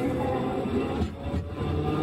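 Sapporo streetcar M100-type tram (car M101) running, heard from on board: a steady low rumble from the wheels and running gear, with several wavering whining tones that drift up and down over it.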